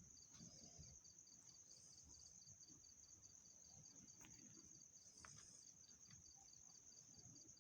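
Near silence, with faint, steady, high-pitched insect chirping in the background.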